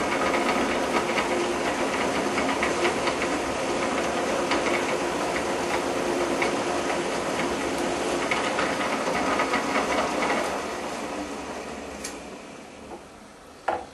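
Drill press running steadily while its bit bores into a wooden ball held in a small clamp. About ten seconds in the motor is switched off and winds down, and a sharp knock comes near the end.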